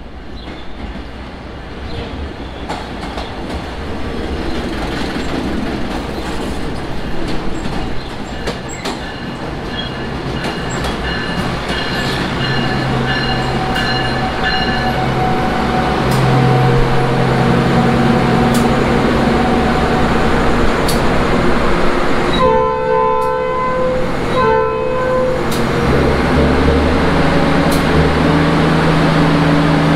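Subway weed-sprayer work train rolling slowly past, getting louder as it comes: wheels clicking over rail joints, then a steady engine hum as the motor car draws level. A horn sounds twice in quick succession about three-quarters of the way through.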